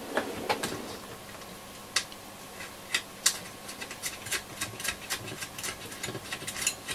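Irregular light clicks and ticks, coming faster in the second half, from hands fitting small nuts and washers finger tight onto the speaker mounting screws of a transistor radio.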